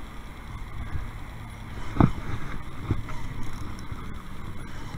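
Wind on the microphone and a low steady rumble from the kayak on the water, with a loud hollow thump about two seconds in and a softer one about a second later, like gear knocking against the kayak hull.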